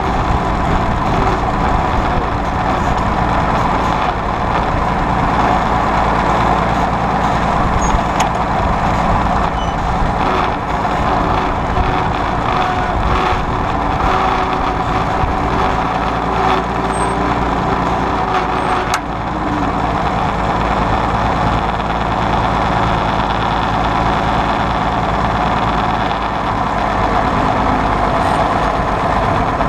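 Allis-Chalmers WD45 tractor's six-cylinder diesel engine running steadily, heard up close from the seat, under light load with the rollover plow lifted out of the ground. A single sharp click about two-thirds of the way through.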